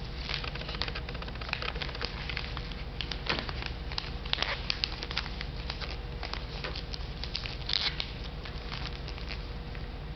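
Irregular clicks and crackles of plastic wafer tape being handled and fed into the grip of a die-demounter, over a steady low hum.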